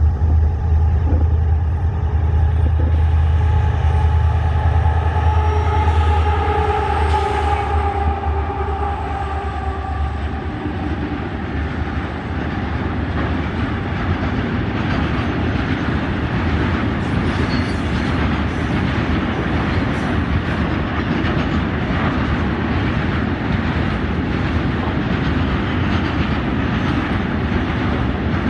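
Twin EMD WDG-4 and WDG-4D diesel locomotives, 16-cylinder two-stroke engines, working hard up a gradient as they pass, their engine drone dropping in pitch. About ten seconds in the engines fade and a long string of loaded tank wagons rolls by with a steady clickety-clack of wheels over rail joints.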